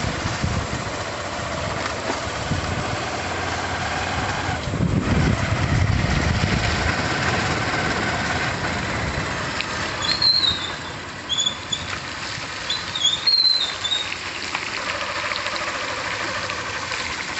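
Motorcycle running steadily while being ridden, its engine mixed with a constant rush of wind and road noise. A few short, high chirps come about two-thirds of the way through.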